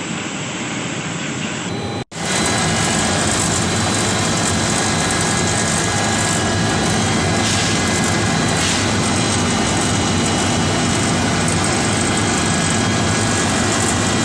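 Chip washing machine running steadily under trial, a loud even mechanical noise with a faint steady hum. It cuts out for an instant about two seconds in and resumes a little louder.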